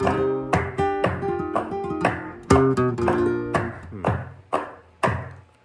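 Flamenco guitar played to a fandango de Huelva palmas (hand-clap) practice track at about 121 beats a minute, sharp strokes about twice a second. The guitar's notes stop ringing a little past halfway, and the last few strokes fade out near the end.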